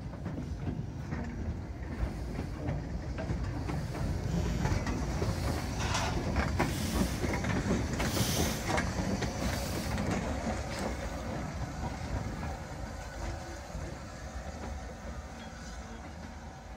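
Somerset & Dorset Joint Railway 7F 2-8-0 steam locomotive No. 53808 and a brake van rolling slowly past with a steady rumble of wheels on rail. A hiss of steam rises about six seconds in as the engine comes closest and lasts a few seconds, then the sound fades as the locomotive draws away.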